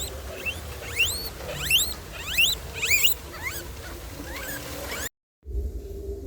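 Rapid high-pitched squeaks or chirps from small animals, several overlapping, each sweeping up and then back down, over a low rumble. They cut off abruptly about five seconds in, after a brief silence.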